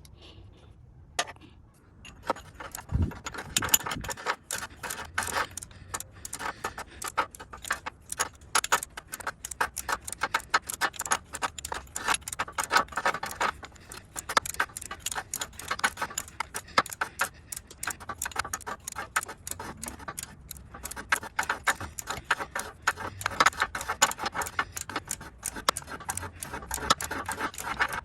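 Rapid, irregular metallic clicking and clinking of hand tools being worked, in runs with short pauses, starting about two seconds in.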